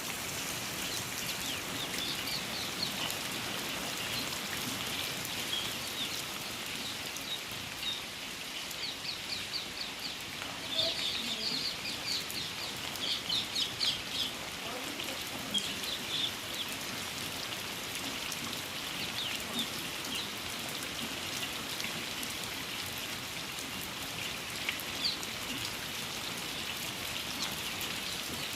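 Steady rain falling, with birds calling over it in groups of short high chirps, busiest about ten to fourteen seconds in.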